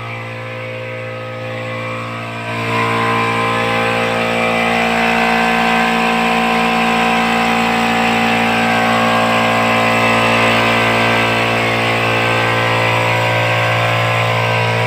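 Small-tank air compressor running steadily as it refills its tank after cutting back in automatically at about 80 PSI. A steady motor hum that gets louder about two and a half seconds in.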